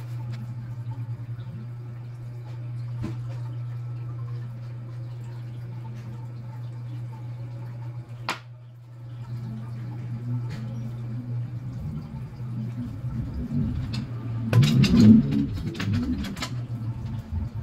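Steady low hum with kitchen handling noises: a sharp click about eight seconds in, then a cluster of knocks and clinks near the end as a drinking glass is handled and set down on the table.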